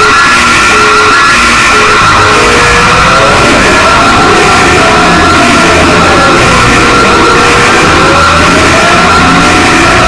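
Loud, distorted synthetic emergency-alert alarm: a steady warbling high tone with short repeated beeps at first, then a siren tone slowly wailing up and down beneath it, rising and falling about every five seconds.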